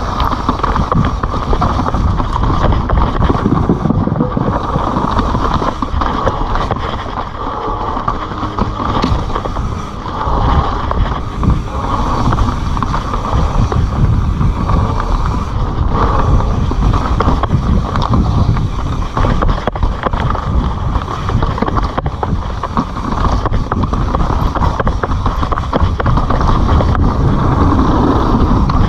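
Kona Honzo ESD hardtail mountain bike rolling fast down a dirt trail: a steady rumble of knobby tyres on dirt, roots and rocks, with the bike rattling and wind buffeting the camera's microphone.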